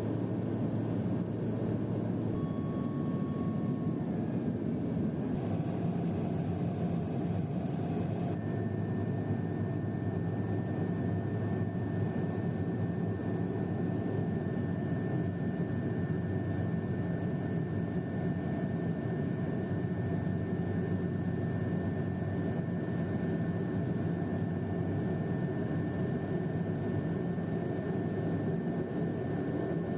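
Steady cabin drone of a Pilatus PC-12's single turboprop engine and propeller during the descent. A thin, high whine joins about eight seconds in and holds.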